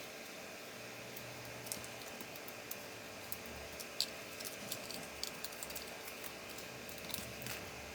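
Scattered light clicks and taps of a laptop's plastic parts and small screws being handled during disassembly, over a steady faint hiss.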